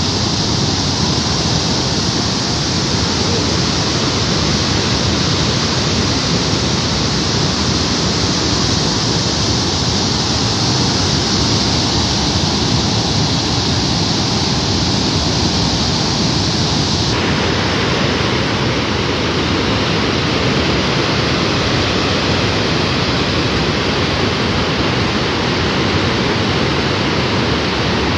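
Loud, steady rush of water with no break or rhythm. About two-thirds of the way in the highest hiss drops away abruptly, and a duller rush carries on.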